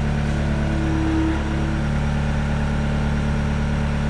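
A steady low machine hum runs throughout, with a short higher tone joining in about a second in.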